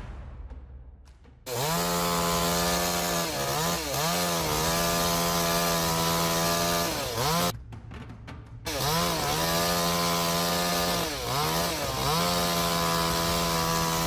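Two-stroke chainsaw running at high revs, its pitch dipping briefly several times as it bogs or eases off; it comes in about a second and a half in and drops out for about a second in the middle.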